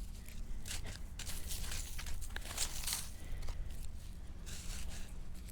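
Weeds being pulled by hand: irregular rustling, crackling and snapping of plants tearing free.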